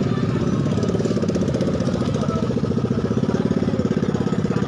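Mitsubishi Fuso truck's diesel engine idling, a steady fast pulsing beat that grows stronger near the end.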